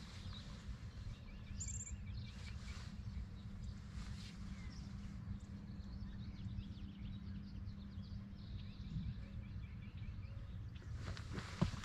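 Riverbank ambience: a steady low rumble with small birds chirping now and then. A few sharp clicks and knocks come near the end.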